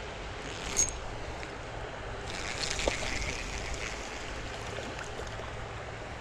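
Creek water running steadily, with a sharp click a little under a second in and a brief stretch of brighter, hissing water sound a couple of seconds in.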